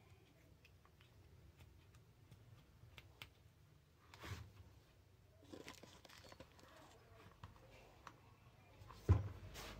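Faint handling sounds of a disassembled rotary hammer drill's greased front housing being turned over in the hands: scattered light clicks and rustles, a soft thud about four seconds in, and a sharper knock just after nine seconds.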